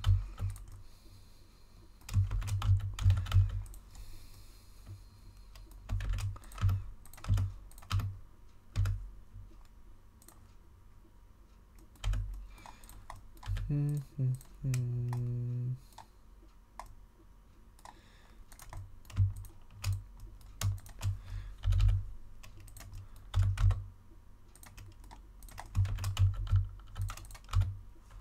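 Computer keyboard keystrokes in short irregular bursts with pauses between, each press landing with a dull low thump.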